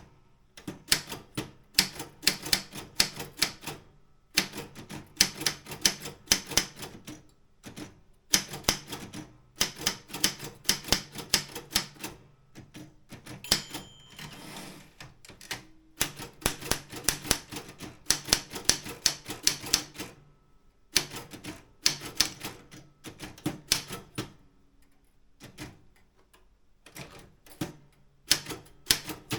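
Optima M16 manual typewriter being typed on: quick runs of key strikes, broken by short pauses. There is a quieter, softer spell about halfway through and another near the end.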